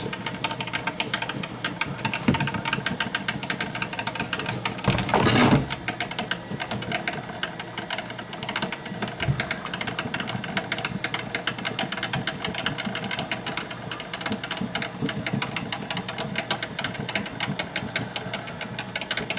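Black & Decker thermal carafe drip coffee maker brewing: a fast, steady rattling sputter as the water is pushed through, with a louder gush about five seconds in.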